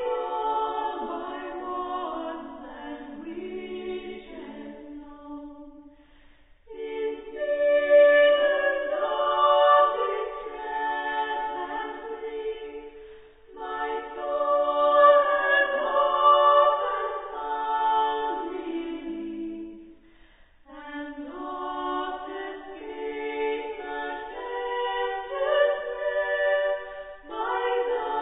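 Background music: slow a cappella choral singing, several voices in harmony on long held notes, in phrases broken by short pauses about six and a half and twenty seconds in.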